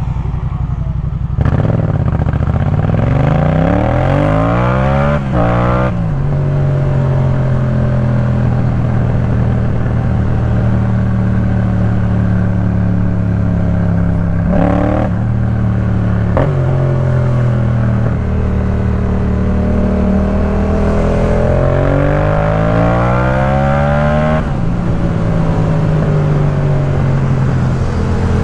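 Yamaha MT-07's 689 cc parallel-twin running through a Jeskap K4 full exhaust system, pulling hard with the revs climbing twice. Each climb ends in a sudden break at a gear change. Between and after the climbs it settles into a steady cruise, with two brief dips near the middle.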